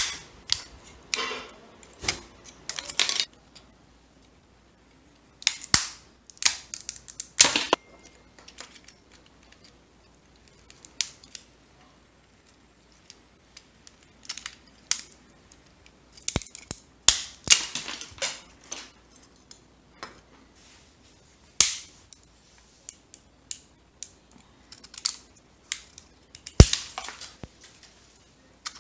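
Brittle objects cracking and snapping as they are squeezed in the jaws of a 3D-printed plastic screw clamp. The sound is irregular sharp cracks and crackles with short pauses between them, the loudest crack near the end.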